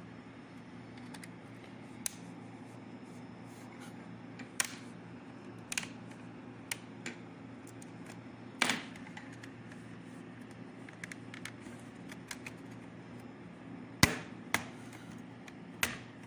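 Plastic snap clips of an Acer Aspire 3 laptop's bottom cover clicking and popping loose as the case is pried open: scattered sharp snaps every second or two, the loudest about nine and fourteen seconds in, over a steady low hum.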